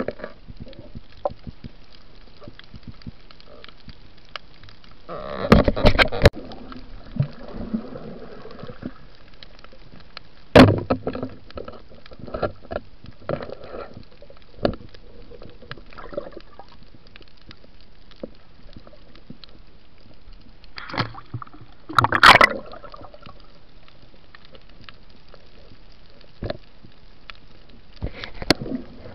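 Underwater water noise and sloshing heard through a waterproof camera on a night spearfishing dive, with scattered sharp knocks and clicks. Short louder bursts of splashing and knocking come about five seconds in, about eleven seconds in, around twenty-two seconds in and near the end.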